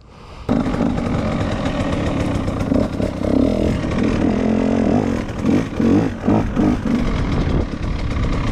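KTM 150 two-stroke dirt bike engine running, cutting in suddenly about half a second in and revved with several throttle blips in the middle before settling back to a steady run.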